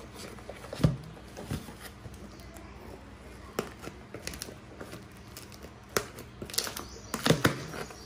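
Cardboard shipping box being handled and opened: scattered knocks, scrapes and clicks as the packing tape is slit with small thread snips and the flaps are pulled open, the loudest cluster near the end.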